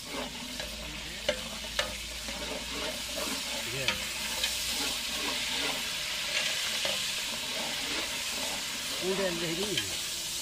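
Masala frying in ghee in a large aluminium pot: a steady sizzle, louder in the middle, as yogurt is stirred in with a steel ladle, with a few sharp clicks of the ladle against the pot.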